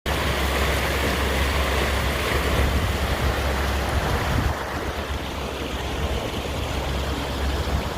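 Wind buffeting the microphone over a steady rush of water on a boat, easing a little about halfway through.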